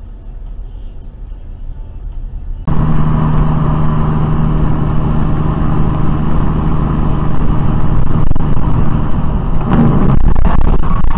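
Road noise inside a moving car, then an abrupt cut to the loud, steady drone of a semi-truck cruising on the highway, heard from inside the cab, with a low hum held at one pitch. Near the end a burst of rattling knocks joins the drone.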